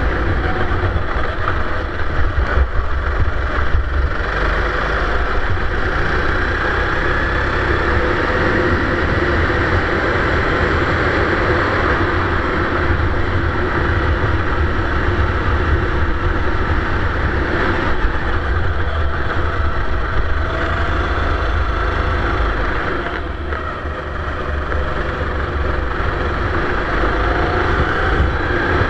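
Sodi racing kart's engine running hard at racing speed, heard from a camera mounted on the kart, its note rising and falling through the corners. The sound drops briefly about three quarters of the way through.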